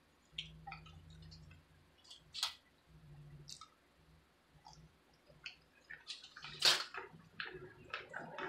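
Eating crispy pan-fried ramen noodles close to the microphone: scattered small crunches and wet mouth clicks, the loudest two about two and a half and seven seconds in.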